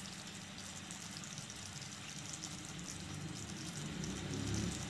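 Sugar-and-water syrup boiling in a pan as it cooks toward caramel: a quiet, steady bubbling hiss.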